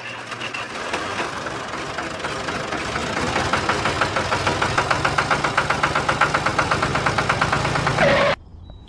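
A train chugging with a fast, even beat that grows louder over the first few seconds, then cuts off suddenly near the end.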